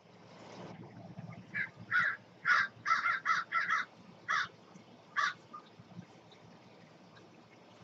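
A crow cawing, about nine short caws, some coming in quick runs, starting about a second and a half in and stopping after about five seconds.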